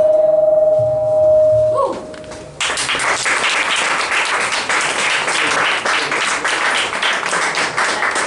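A band's closing held note rings steadily, then slides down and stops about two seconds in. Half a second later the audience breaks into applause, which carries on.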